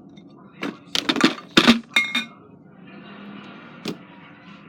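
Fingers poking fluffy slime on a plate, giving a quick run of sharp pops and clicks starting about a second in, and one more click near the end.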